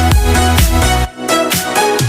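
Background music with a steady beat and heavy bass; the bass and beat drop out for about a second midway.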